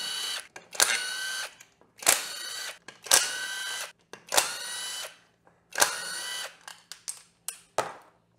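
Cordless drill-driver whirring in about six short runs of under a second each, spinning out the side cover bolts one after another, with a few light clicks near the end.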